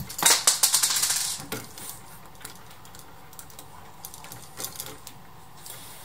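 A quick run of light metallic clicks and rattles in the first second and a half, then a few scattered clicks: stiff copper electrical wires being bent straight by hand, jostling the old switch that hangs from them.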